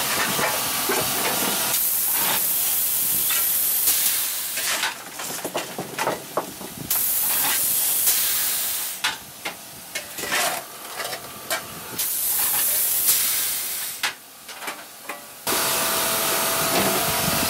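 Steam locomotive cab: loud, steady hissing of steam that drops away three times for a couple of seconds of clattering and knocking.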